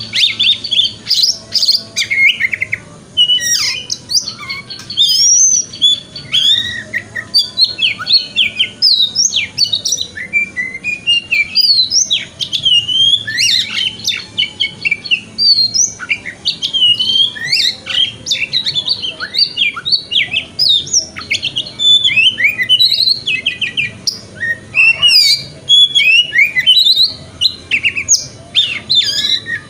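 Oriental magpie-robin (kacer) singing continuously: a dense, varied stream of rapid chattering twitters mixed with clear, loud whistled notes and quick up-and-down sweeps, the 'wikplong' style used as a lure song for magpie-robins.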